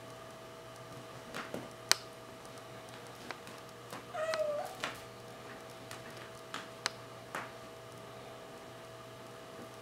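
Bengal kitten giving one short, wavering meow about four seconds in. A few sharp clicks and scratches are scattered around it, the loudest about two seconds in, over a steady faint hum.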